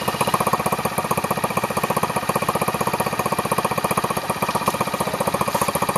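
Small single-cylinder four-stroke motorcycle engine running steadily, with a rapid, even beat.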